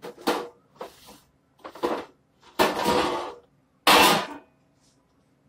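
Handling noise close to the microphone: five loud bursts of clattering and rustling as items are moved and set down, the last two starting with a sharp knock.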